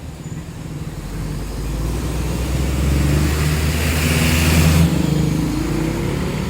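Large tour bus's diesel engine pulling away past the microphone, its note rising slightly as it accelerates. It is loudest about three to five seconds in, with a hiss at the peak.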